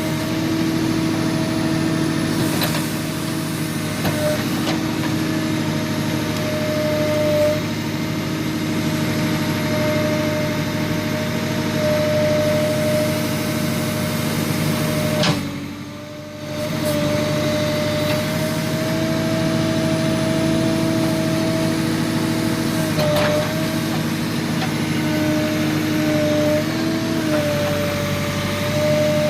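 Tractor loader backhoe's engine running at a steady speed. The loudness dips briefly about halfway through, and the pitch wavers slightly a few seconds before the end.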